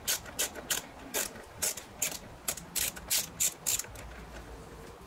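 Hand ratchet clicking in short back-and-forth strokes while tightening the clamp on the air-intake hose. About a dozen sharp clicks come in quick succession and stop about four seconds in.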